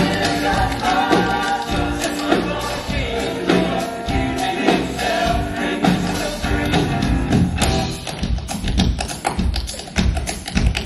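Live band music from a theater stage, electric guitars, drums and piano, with men's voices singing held notes. A steady drum beat comes forward in the second half.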